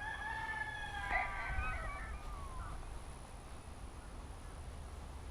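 An animal's drawn-out, high whining call lasting about two and a half seconds, wavering and bending in pitch toward its end.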